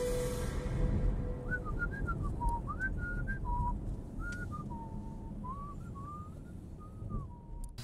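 A man whistling a short, wandering tune, one clear note line stepping up and down, starting about a second and a half in and stopping just before the end. Beneath it runs the low, steady road and engine noise of a car cabin.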